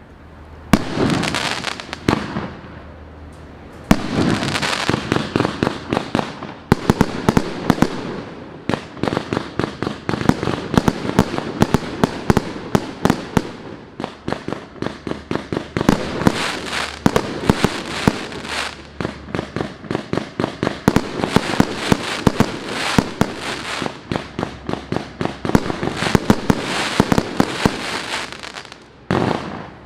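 Multi-shot fireworks cake (FC113MK battery) firing a rapid string of shots, several per second, with bursts and crackle between them. There is a short lull about two to four seconds in, and the volley stops just before the end.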